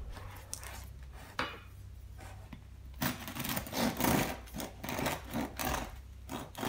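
A bread knife sawing through the crust of a freshly baked loaf on a wooden board. After a quieter start with a single light knock, a run of scraping sawing strokes begins about three seconds in, two to three a second.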